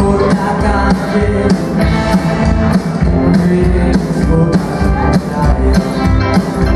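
Live rock band playing loud: electric hollow-body guitar, upright bass and drum kit, with a steady drum beat.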